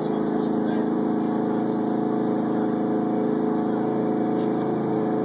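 Drag-race cars' engines idling at the starting line: a steady, even engine note that holds one pitch, with no revving or launch.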